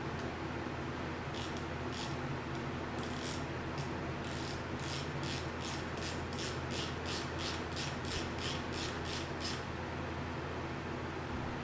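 Hand ratchet wrench clicking as it is swung back and forth. A few scattered clicks come first, then a steady run at about four to five clicks a second that stops near the end.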